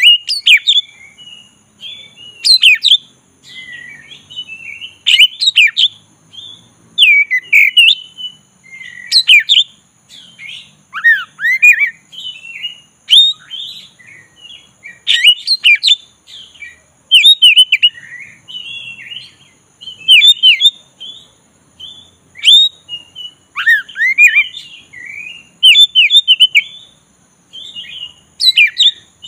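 Male oriental magpie-robin singing a long, unbroken run of varied whistled phrases, with loud, sharp notes every second or two.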